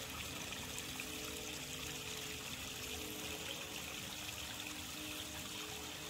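Steady trickle of running water from a small stream, with faint held notes of soft background music underneath.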